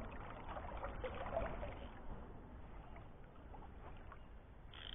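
Faint flowing river water, a soft rippling and trickling from the current, with a few light ticks.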